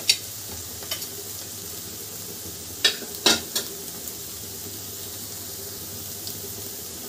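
Chopped onion and capsicum frying in butter in an aluminium kadhai, a steady sizzle. A metal spoon clinks against the pan a few times, the loudest strikes around three seconds in.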